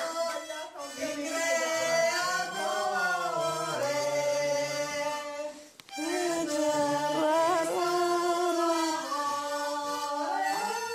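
Singing: a slow melody of long held notes, breaking off briefly about six seconds in.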